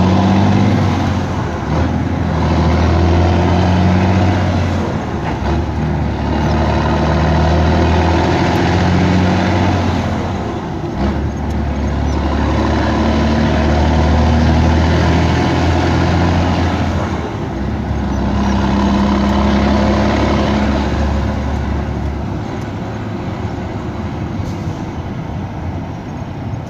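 Scania 113 truck's six-cylinder diesel engine running loud under way, heard from inside the cab. Its low drone changes in steps every four to six seconds, dipping briefly between them.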